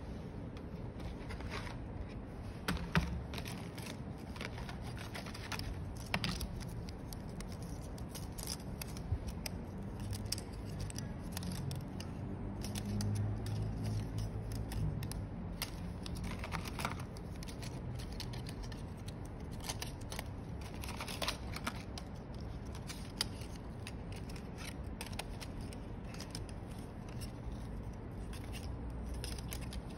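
Scattered small clicks and scrapes of hands handling plastic parts on a silicone work mat, including a plastic tub of phone-screen test adapters. There is a low rumble near the middle.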